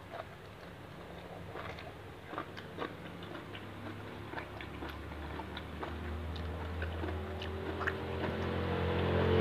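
Chewing and small mouth clicks of a person eating raw shrimp in fish sauce, the shrimp crisp and firm. Music with low held tones fades in over the second half and grows louder toward the end.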